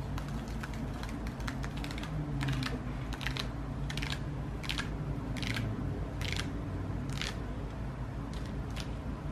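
Round paper dot stickers being peeled one after another off their backing sheet, each peel a short crackle, several in quick succession with the clearest ones in the middle few seconds.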